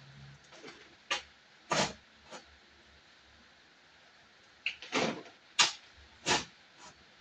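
A shovel scraping and scooping soil, with the loads dropped into a wheelbarrow. The sound comes as short scrapes and thuds, three spread over the first half and a quicker cluster of four after the middle.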